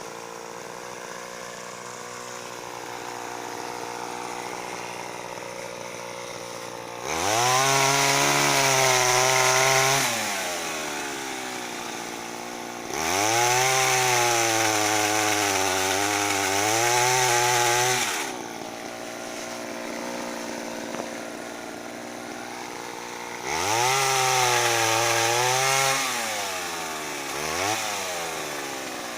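A pole saw driven by a Mitsubishi TL26 two-stroke brushcutter engine idles, then is throttled up to high revs three times for a few seconds each, dropping back to idle between. The pitch wavers while at speed, as the chain cuts through longan branches.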